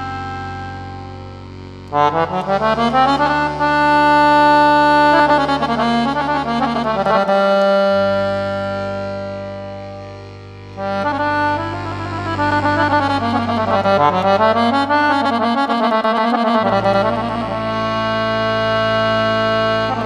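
Instrumental background music: melodic phrases with sliding notes over long sustained bass notes. Twice the music fades down, and twice a new phrase comes in suddenly, about 2 seconds in and again about 11 seconds in.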